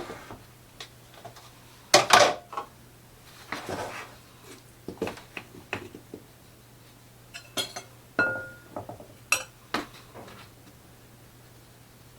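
Kitchen utensils clinking and knocking against a mixing bowl now and then as flour is scooped and measured, with one short ringing clink about eight seconds in.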